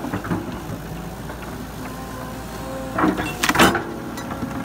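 Tracked hydraulic excavator's diesel engine running steadily as its bucket works through brush, with a brief loud burst of crackling about three seconds in.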